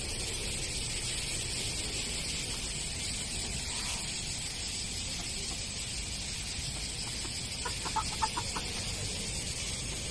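Chickens clucking: a single faint cluck about four seconds in, then a quick run of clucks about eight seconds in, over a steady hiss.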